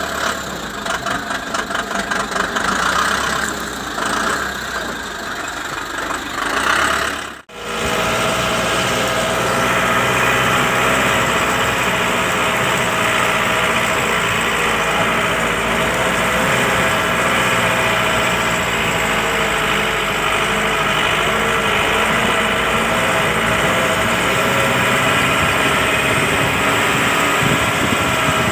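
Tata 407 light truck's diesel engine running as it drives on a rough dirt road, uneven and pulsing at first. After a sudden brief break about seven seconds in, it settles into a steady drone whose pitch wavers slowly.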